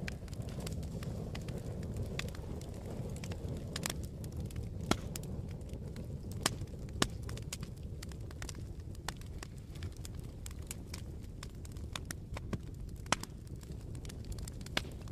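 Wood fire burning in a fireplace: a steady low rumble of flames with scattered sharp crackles and pops, a few of them louder than the rest.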